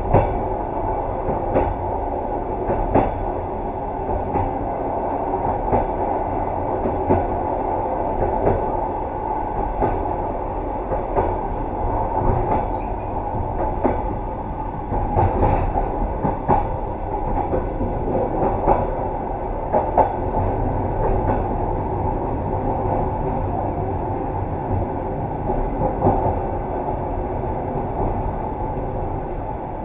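Train running over jointed track: a steady low rumble with wheels clicking over the rail joints about every second and a half.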